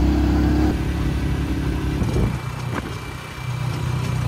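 Motorcycle engine of a Philippine tricycle running under way, heard from inside the sidecar: a loud, steady drone at first, easing off about a second in, dipping around three seconds in and picking up again near the end.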